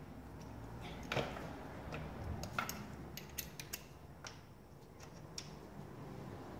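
Scattered light metallic clicks and clinks of hand tools on engine bolts while fasteners are snugged down by hand, irregular and spread over a few seconds.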